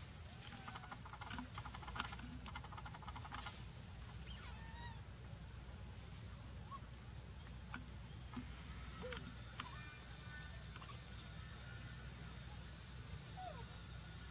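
Outdoor ambience of a steady high insect drone, with a few short, high chirps about ten and eleven seconds in.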